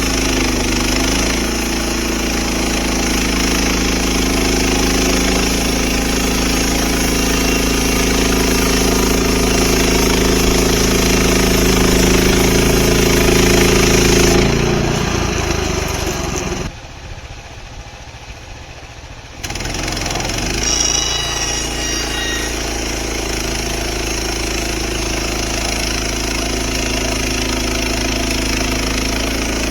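Portable band sawmill's gasoline engine running steadily. It drops away for a few seconds just past the middle, then runs on steadily again.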